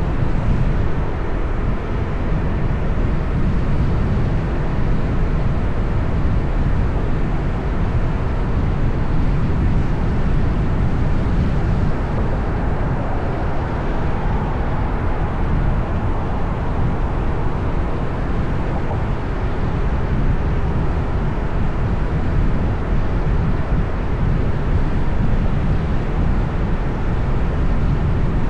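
Steady road and traffic noise heard while travelling through city streets: an even, low-pitched noise that holds the same level throughout, with no distinct events.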